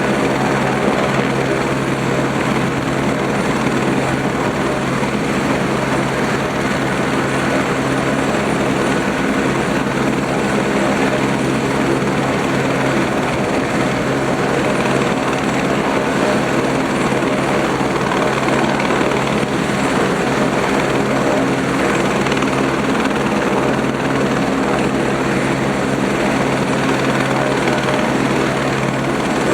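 Eurocopter AS350 B3 helicopter running steadily, its single turboshaft engine and rotor making a continuous, even sound.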